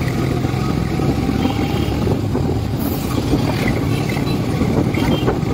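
Honda SP motorcycle engine running steadily while riding at a cruising speed of about 35 km/h, with road and wind noise over it.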